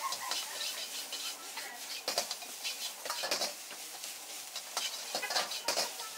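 Metal ladle scraping and tossing egg fried rice around a wok in repeated, irregular strokes, with frying sizzle underneath.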